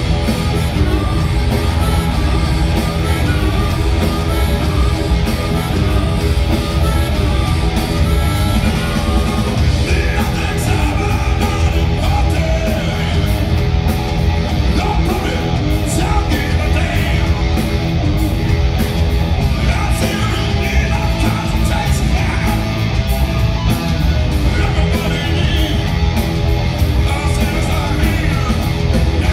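A hard rock band playing live over a concert PA: electric guitar, bass guitar and drums, with the singer shouting and singing the vocal.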